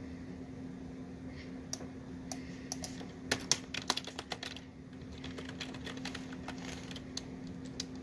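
Typing on a computer keyboard: irregular runs of key clicks, thickest about two to four and a half seconds in and again near the end, over a steady low hum.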